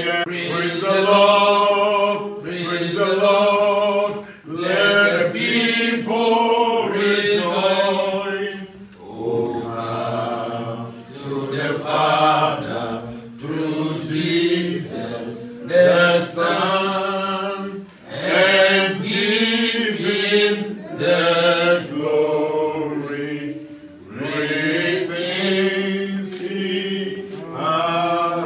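Congregation of men and women singing a hymn together, in long sung phrases broken by short pauses for breath.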